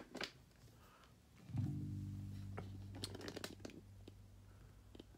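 A Squier electric bass guitar string plucked once, about a second and a half in, its low note ringing on and slowly fading. A few light clicks and taps from handling the instrument come through over it.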